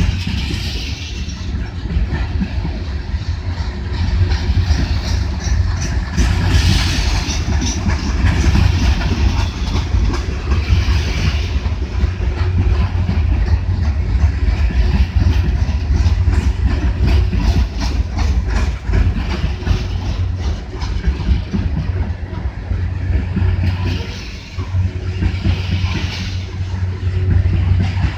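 Loaded coal hopper cars rolling past close by: a steady low rumble of steel wheels on rail, with rapid clickety-clack as the wheels pass.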